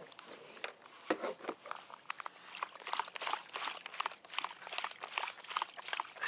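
Rustling and crinkling handling noise: dense, irregular crackles that grow busier about two and a half seconds in.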